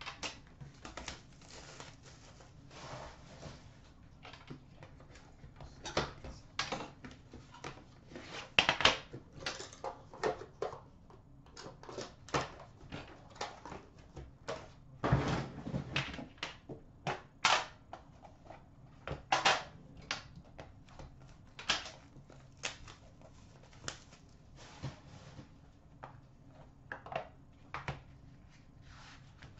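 A sealed 15-16 Upper Deck The Cup hockey box being unwrapped and opened by hand: the plastic wrap is cut and pulled off, then the metal tin is handled and opened, making irregular crinkles, clicks and knocks. A heavier thud comes about fifteen seconds in.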